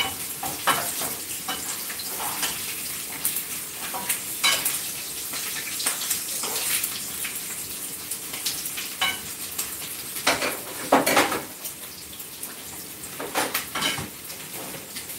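Pork ribs sizzling in hot oil in a frying pan while being turned with a spatula, which scrapes and clicks against the pan many times, loudest about eleven seconds in.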